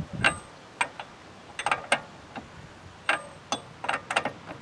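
Hand ratchet clicking in short irregular bursts as the axle nut is run down onto the axle shaft.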